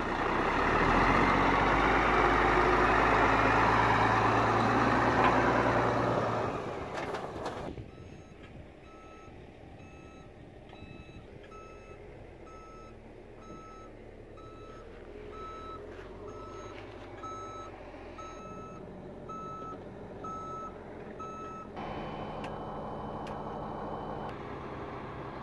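Heavy tow truck's diesel engine running close by for the first several seconds, then cutting off suddenly. About ten seconds in, a quieter reversing alarm starts beeping steadily, about one and a half beeps a second, and stops near the end.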